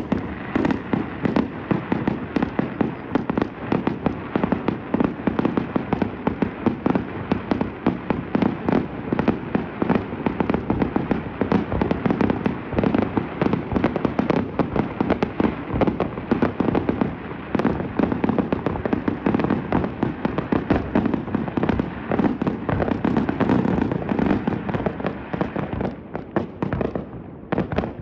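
Fireworks display in a rapid, continuous barrage: many overlapping bangs and crackles with hardly a gap, thinning briefly near the end.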